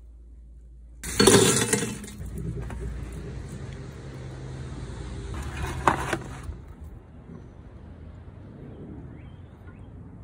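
Power drill running for about five seconds as it bores a hole through the rib bone of a tomahawk steak, starting abruptly and cutting off suddenly.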